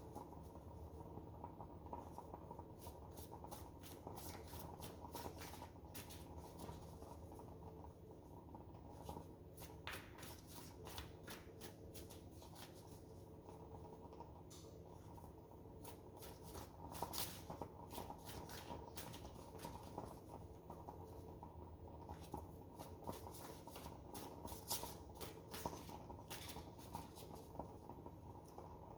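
A deck of oracle cards being shuffled by hand: a long run of soft, irregular card clicks and riffles, faint, over a steady low hum.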